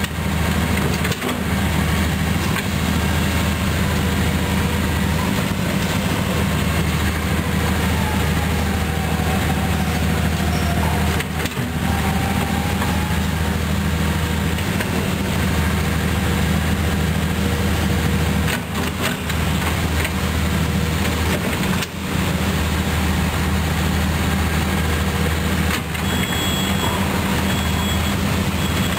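Diesel engines of a Komatsu PC200 excavator and a SANY rotary drilling rig running steadily under work. A brief wavering whine comes about ten seconds in, and a few sharp knocks come through the second half.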